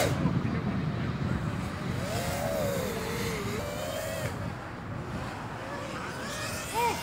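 Steady low rumble of distant road traffic, with a thin wavering whine that rises and falls for a couple of seconds in the middle.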